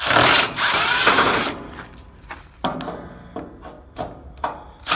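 Power drill driver running in bursts to back screws out of a pool heater's panels. It runs hard for about a second and a half, then briefly again about two and a half seconds in, and starts up once more near the end, with small clicks between.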